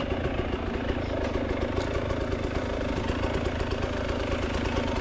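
Enduro motorcycle engine running steadily at low revs, with an even, fast pulse and no revving.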